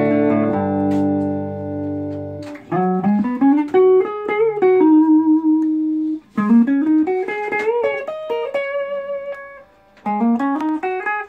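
1985 Gibson Les Paul Custom electric guitar on its bridge Tim Shaw humbucker, played through a Fender Deluxe Reverb amp with a little reverb. A ringing chord is held for about two and a half seconds, followed by phrases of single notes climbing up the neck with held notes between them. Near the end there is a brief pause, then another rising run.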